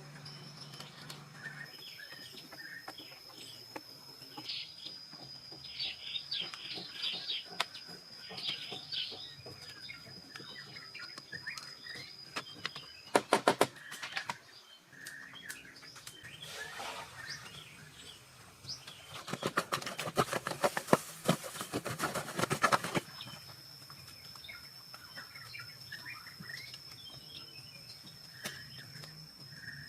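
Birds chirping over a steady high-pitched drone. A short burst of loud rapid clicks comes a little before halfway, and a longer burst of rapid rattling comes about two-thirds of the way through.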